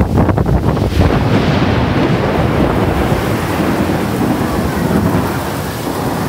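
Thunder rumbling over heavy, steady rain. The rumble is loudest early on and slowly dies away.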